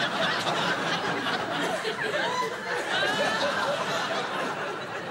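Studio audience laughing: many people chuckling together, easing off near the end.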